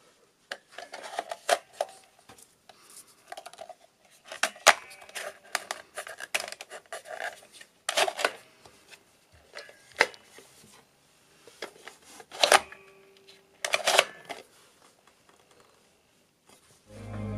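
Wooden cigarette-dispenser box worked by hand: wood sliding and scraping against wood, broken by sharp clicks and knocks from its lid and drawer mechanism every second or two. Music starts near the end.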